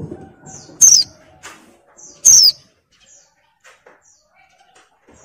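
Female white-eye (pleci) in breeding condition giving two loud, short downward-sweeping calls about a second and a half apart, with fainter chirps between.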